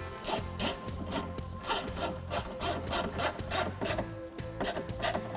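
Ratchet turning a self-tapping 10 mm screw into the door, a short rasping click with each back-swing, about three strokes a second, over background music.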